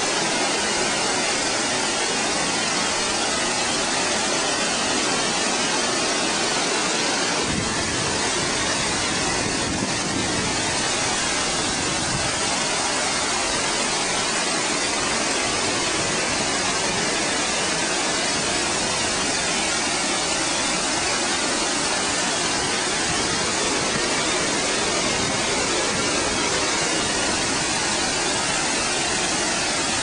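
Water pouring over a dam's spillway and crashing onto rocks below: a steady rushing. It deepens about seven seconds in, with a fuller rumble underneath from then on.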